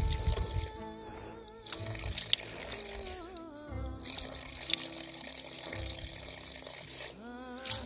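Spring water running from a pipe over rocks, under background music with a wavering melody line that comes and goes.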